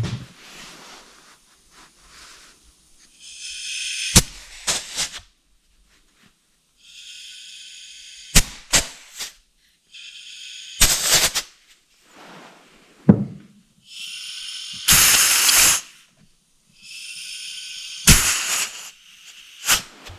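Compressed-air blowgun with a rubber tip giving five short bursts of air, each a hiss of one to two seconds, with sharp clicks and knocks around them. The air is pressurising a blocked-off fuel-system part on a diesel excavator to check for leaks.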